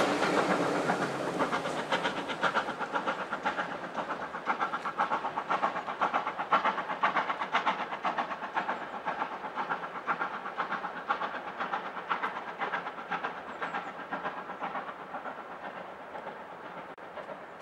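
Steam locomotive and its train heading away, a steady rapid beat of exhaust and wheels fading gradually into the distance.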